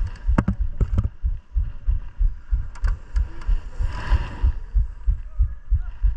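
Mountain bike being ridden downhill, picked up by a camera on the bike or rider: a steady low thumping about three times a second, a few sharp clicks in the first second and again near three seconds, and a short hiss about four seconds in.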